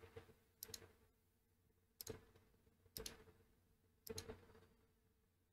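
Near silence with a handful of faint, short computer mouse clicks, spaced roughly a second apart.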